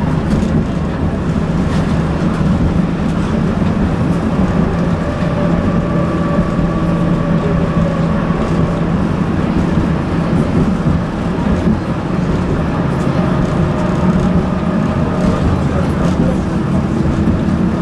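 Moving tram heard from inside the car: a steady rumble of wheels running on the rails, with a faint steady hum over it.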